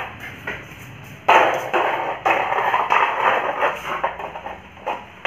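A hard object scraping and knocking on a concrete floor as a dog noses and mouths it, in a run of rough bursts that begins about a second in and eases off near the end.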